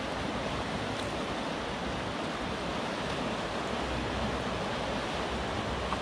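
Fast-flowing river water rushing steadily over and below a small weir: a constant, even noise of strong current.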